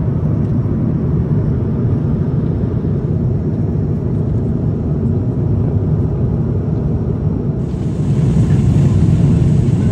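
Steady low rumble of an Airbus A350-900's cabin in cruise, engine and airflow noise heard from inside. About three-quarters of the way through it turns slightly louder and brighter.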